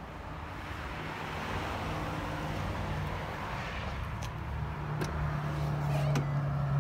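A vehicle engine idling as a steady low hum, with a rush of noise swelling and fading in the middle and a few light clicks near the end.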